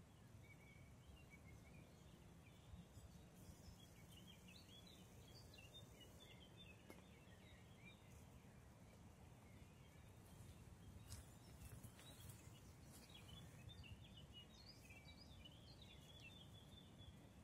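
Very faint forest birdsong: small birds giving scattered high chirps and twitters in short flurries, over a low steady rumble.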